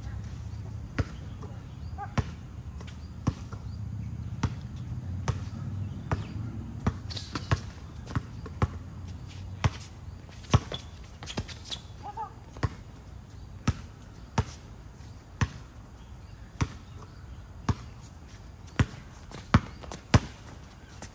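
Basketball being dribbled on a court: sharp bounces about once a second, coming a little quicker in the middle stretch.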